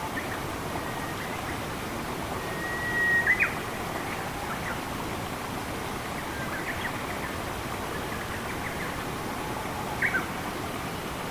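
Steady rush of flowing water with scattered bird calls over it: a held whistle ending in two sharp notes about three seconds in, a few faint chirps, and another pair of sharp notes near the end.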